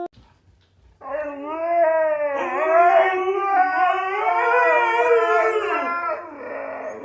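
Dog howling: one long, wavering howl that starts about a second in and trails off near the end.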